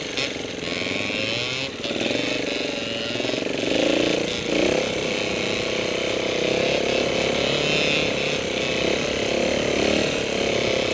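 Trials motorcycle engine running on a muddy trail, its note rising and falling with the throttle in the first few seconds, then holding steadier.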